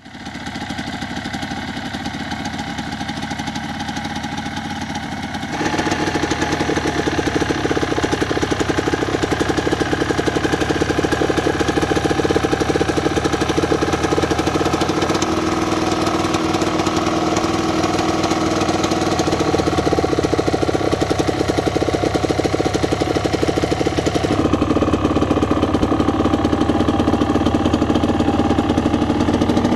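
Yamaha DT 125's single-cylinder two-stroke engine running steadily at idle through an aftermarket Giannelli silencer, with no revving. It gets louder and fuller about five or six seconds in, and its tone shifts again about 24 seconds in.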